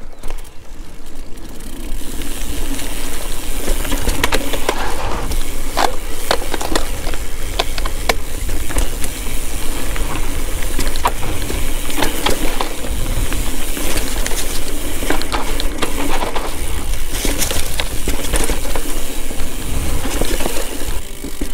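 Mountain bike ridden over a rough climbing trail: steady rumbling noise with frequent sharp clicks and knocks as the bike rattles over the ground.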